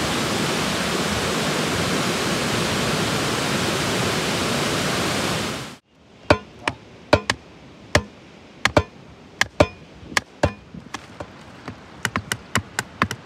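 Waterfall rushing steadily, cutting off abruptly about six seconds in. Then sharp knocks of wooden stakes and tarp pegs being hammered into the ground, spaced unevenly at first and coming quicker near the end.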